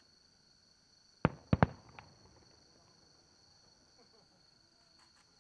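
Aerial firework shells booming: three loud bangs in quick succession about a second in, then a smaller one. A steady high chirring of insects runs underneath.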